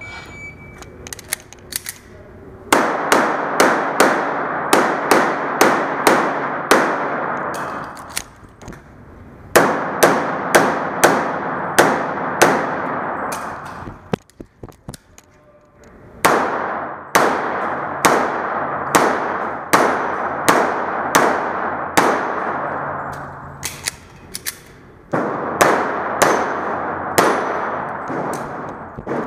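Rapid strings of pistol shots from a Tanfoglio Limited Custom in .40 S&W, about two shots a second, ringing with heavy echo off the walls of an indoor range. The shots come in four strings separated by short pauses, the longest about two seconds long near the middle.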